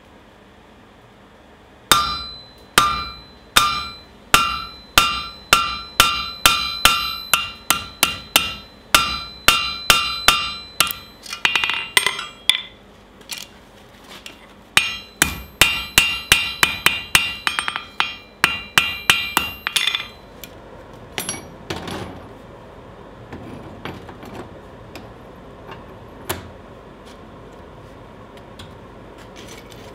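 Hand hammer striking a hot steel bar laid over a hardy on the anvil, cutting it, about two blows a second with a clear ringing anvil tone after each, in two runs with a short pause between. After that come only a few faint metal clinks of tongs at the coal forge.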